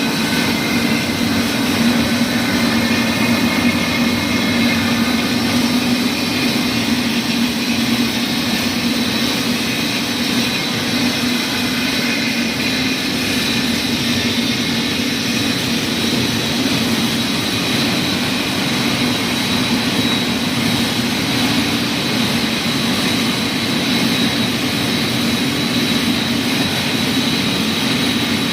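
Wire-production machinery running steadily: a continuous loud mechanical hum with a thin high whine held over it.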